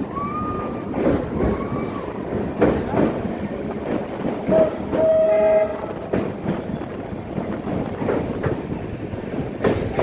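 Indian Railways passenger train running along the track, wheels clacking over rail joints in an uneven rhythm above a steady rumble. A brief high squeal comes near the start, and a short horn blast of about a second sounds about halfway through.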